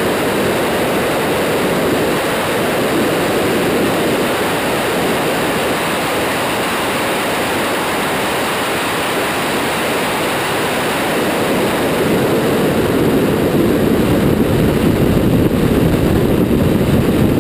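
Steady rush of wind and road noise from a Lamborghini Aventador at high speed, with the V12 engine under it, picked up by a camera mounted outside on the car's rear. It grows a little louder in the last few seconds.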